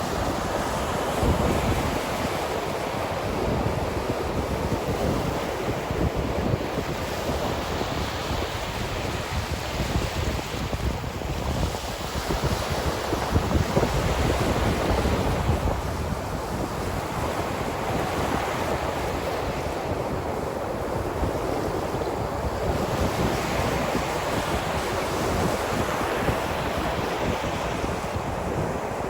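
Ocean surf washing onto a shore with wind: a continuous rushing that swells and eases every several seconds.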